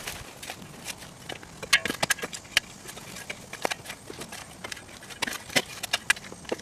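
Shovel blades scraping and chopping into dry, clumpy soil, with sharp irregular clicks of metal striking clods and stones. The strikes come in clusters, about two seconds in and again around five to six seconds in.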